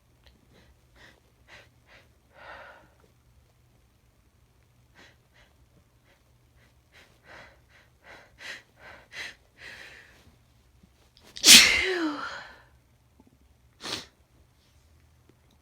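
A woman in a sneezing fit: short catching breaths that come faster and faster, then one loud sneeze with a falling voiced tail about eleven and a half seconds in, and a shorter sharp burst near the end. The fit was set off by sniffing chhinkni, a sneeze-inducing herbal snuff.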